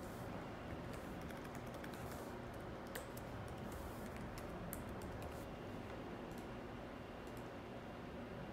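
Faint, irregular computer-keyboard typing and key clicks over steady room noise.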